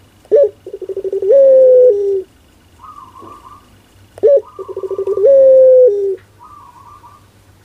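Barbary dove (puter) of a long-voiced 'pelung' type cooing twice. Each call is a short sharp note, then a rolling coo that speeds up into a long held note and drops off at the end. A quieter, higher trilling call sounds in the gaps between.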